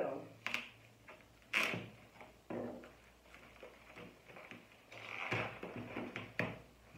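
Rustling and crinkling of a white protective wrapping as a round tape seal is picked and peeled off it. The sound comes as several short rustles, the loudest about one and a half seconds in.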